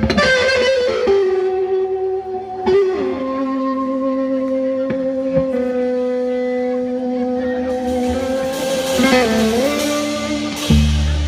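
Live rock band opening a song: electric guitar playing long held notes through effects, sliding in pitch around nine seconds in, with cymbals swelling and bass and drums coming in near the end.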